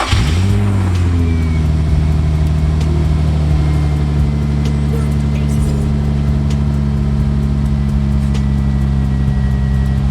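2003 Infiniti FX35's 3.5-litre V6 catching and flaring briefly on start-up, then settling into a steady idle. No exhaust rattle: the cracked exhaust pipe ends that used to tap together have been ground down.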